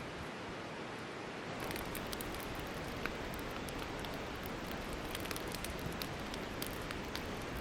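Steady rushing noise, then about one and a half seconds in a wood campfire crackling with scattered sharp pops over a low hiss.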